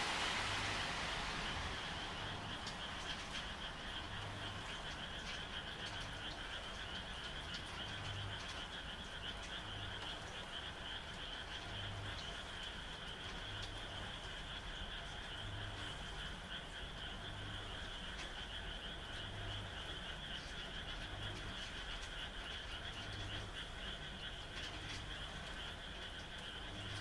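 Frog chorus: a dense, steady trilling of many frogs, with a deep croak repeating about every two seconds. A rush of rain fades out in the first two seconds.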